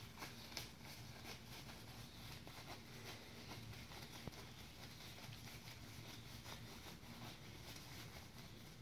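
Faint rustling and crinkling of lightweight nylon hammock fabric as its gathered end is bunched and handled, over a low steady hum.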